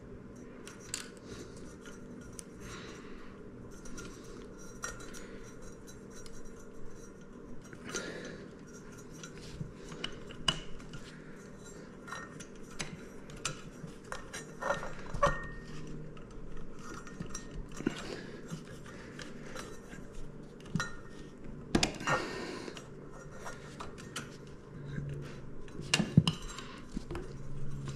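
Hands handling electrical wires and connectors at a metal ceiling box, making scattered small clicks, clinks and rustles as the wire joints are made and pushed up into the box.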